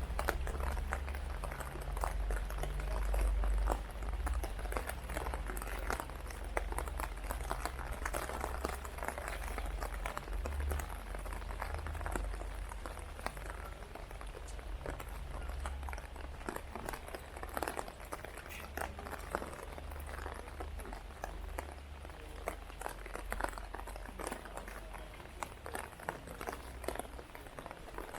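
Heavy rain falling, a dense patter of countless drops striking hard surfaces, with a low rumble underneath that is strongest in the first few seconds.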